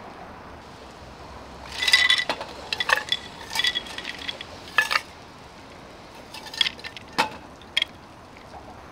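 Ice cubes clinking and rattling as they are tipped out of a stainless-steel insulated tumbler into a bowl of grapes: a busy run of clinks with a ringing note from about two to five seconds in, then a few single clinks near the end.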